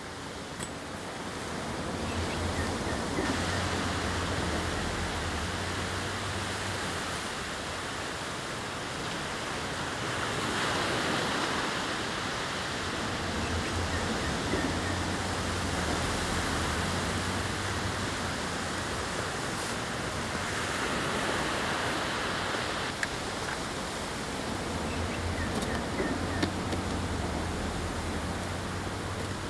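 Surf washing up on a beach, the noise of the waves swelling and easing every several seconds.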